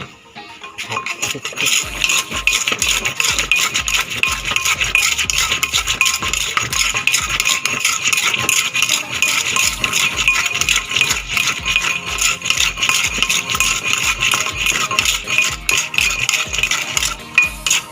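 Background music with a steady beat and a fast shaker-like rattle, starting about a second in.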